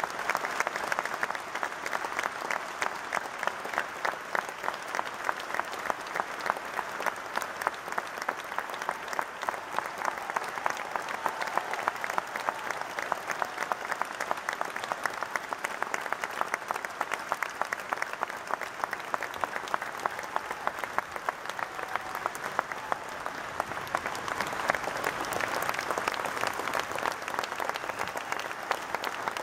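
A large crowd applauding without a break, a long ovation that swells a little near the end.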